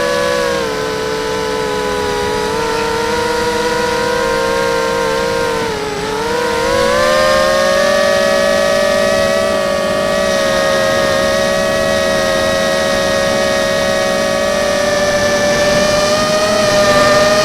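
QAV250 racing quadcopter's brushless motors whining in flight. The pitch sags about six seconds in, then climbs back and holds steady.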